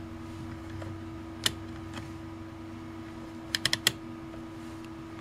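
Sharp plastic clicks: a single click, then a quick run of four detent clicks about three and a half seconds in as the rotary function dial of a 121GW multimeter is turned. A faint steady hum sits underneath.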